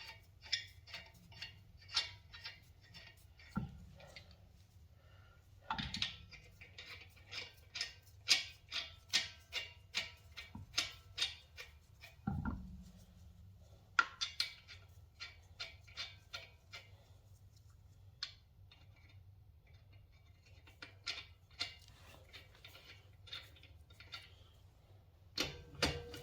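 A ratchet wrench clicking in runs of quick, even strokes as lug nuts are run onto a wheel, with a few duller metal knocks between the runs.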